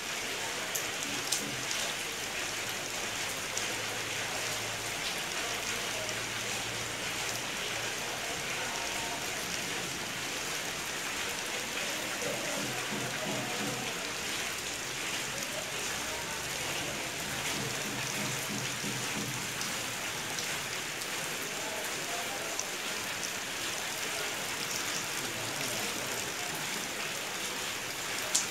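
Steady rain falling onto wet concrete and splashing into water-filled terracotta clay pots, with a few sharper single drop hits standing out.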